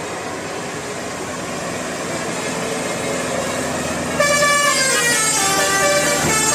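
Steady traffic and engine noise, then about four seconds in a Basuri telolet bus horn starts loudly, its multi-tone air horns playing a tune of stepping notes.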